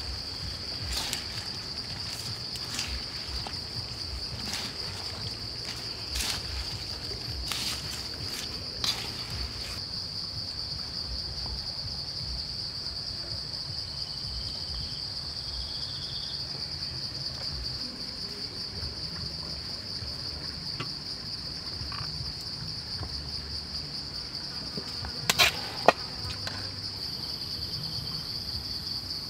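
Insects buzzing in a steady high-pitched chorus throughout. In the first nine seconds or so there are scattered light clicks and scrapes of chopsticks tossing salad in a metal wok, and two sharp knocks come near the end.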